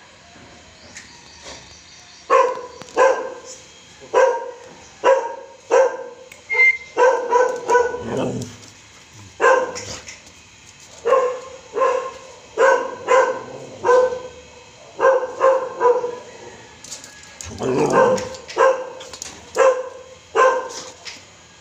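Siberian husky barking over and over in excitement, a fast run of short barks starting about two seconds in.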